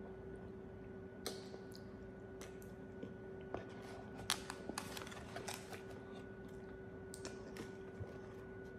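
Irregular small clicks and taps of light handling, most of them in the middle stretch, over a faint steady hum.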